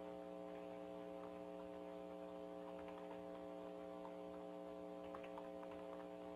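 Faint steady electrical mains hum on a recorded phone line, with a few soft clicks.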